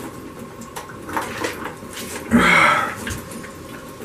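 Diet Coke gulped from 2-liter bottles, with faint gulps and glugs, then a loud breathy gasp about two and a half seconds in as one drinker comes up for air.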